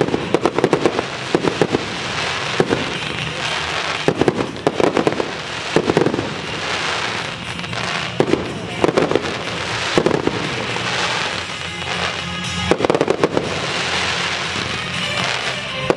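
Aerial fireworks display: shells bursting one after another with sharp bangs and crackling, over music.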